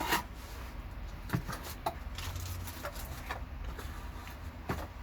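Handling of a boxed book being unpacked by hand: a few scattered rustles and light knocks, over a steady low hum.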